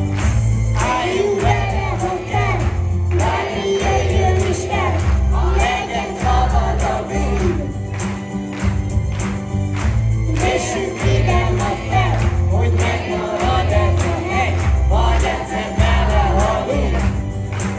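A large mixed choir of young voices singing together over instrumental accompaniment with a steady low bass.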